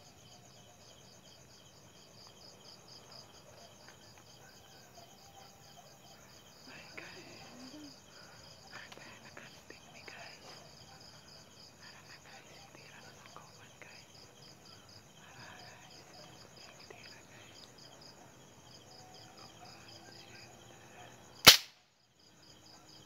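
Crickets and other night insects chirring in a steady, high, pulsing drone, with faint rustling now and then. Near the end comes a single sharp crack, much the loudest sound.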